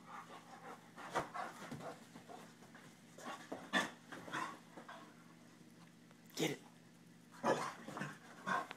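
Black German Shepherd–Lab mix dog making short breathy noises in separate bursts a second or two apart, with the loudest ones about four seconds in and again near the end.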